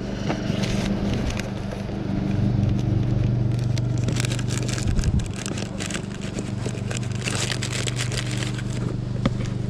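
Clear plastic bag of soft-plastic fishing worms crinkling and rustling as it is handled, from about three and a half seconds in, over a steady low hum.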